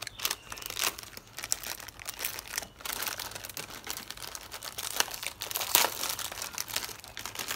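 Plastic wrapper of a packet of wafer rolls crinkling and tearing as it is pulled open, with a run of irregular crackles and the sharpest rips about five to six seconds in.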